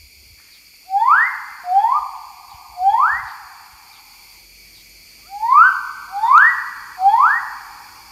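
Male magnificent riflebird calling: six loud whistles in two sets of three, each sweeping sharply upward and then trailing off. The first set begins about a second in, and the second follows after a pause of about a second.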